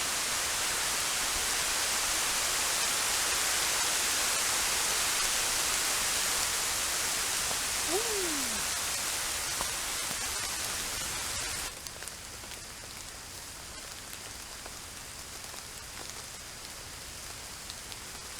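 Heavy rain pouring down in a steady hiss, dropping abruptly to a lighter, quieter rain a little past halfway. A brief falling tone sounds near the middle.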